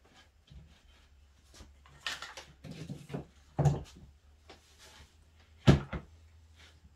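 A computer monitor being pivoted and adjusted on its stand by hand: scraping and rubbing with several knocks, the sharpest and loudest one near the end.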